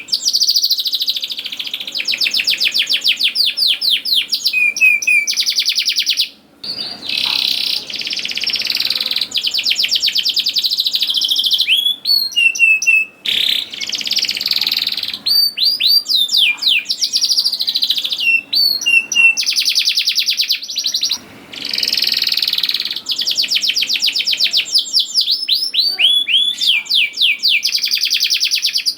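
Domestic canary singing continuously in full song: long fast trills of rapidly repeated notes mixed with downward-sweeping whistled notes, broken by a few brief pauses.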